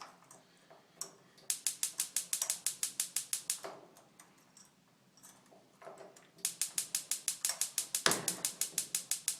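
Avanti gas range spark igniter clicking fast and evenly, about nine clicks a second, in two runs: one of about two seconds, then one of about three seconds. A single louder knock comes about eight seconds in.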